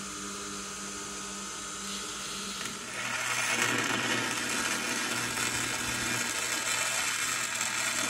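Belt grinder running as a steel bar is ground clean against the belt. About three seconds in it gives way to a louder electric welding arc, crackling and buzzing steadily as the stacked steel billet is tack-welded together.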